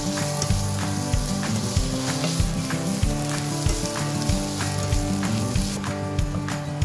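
Diced ham sizzling as it fries in oil in a nonstick pan; the sizzle cuts off abruptly near the end. Background music with a steady beat plays underneath.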